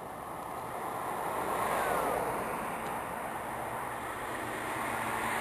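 Four jet engines of the Boeing 747 Shuttle Carrier Aircraft, with the space shuttle Endeavour on its back, flying past: a steady rushing noise that swells over the first two seconds and then holds.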